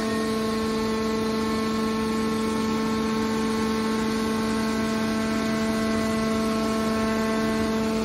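Hydraulic scrap metal baler running: a steady, even whine-hum from its hydraulic pump and motor as the cylinder swings the press lid shut.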